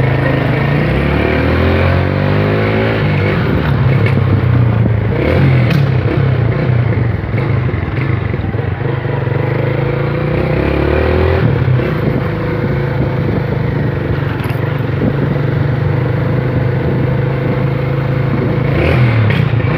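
Honda Titan motorcycle's single-cylinder four-stroke engine running under way. It speeds up with a rising engine note twice in the first few seconds, then holds a steadier note, with road and wind noise throughout.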